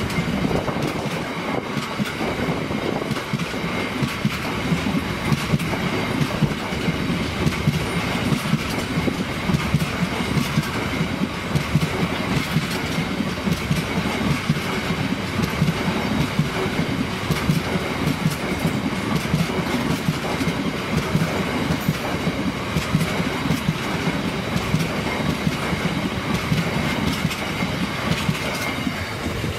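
Empty biomass hopper wagons of a freight train rolling past, their wheels clattering rhythmically over the rail joints. A thin, steady high-pitched tone runs under the clatter.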